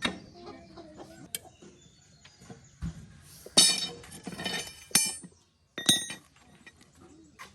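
A loud, drawn-out animal call with many stacked tones, about halfway through and again briefly about a second later, among scattered light metal clinks.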